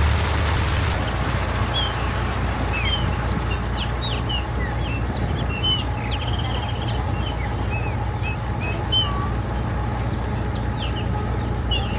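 Boat engine running with a steady low hum. From about a second and a half in, many short, high chirps and squeaks are scattered over it.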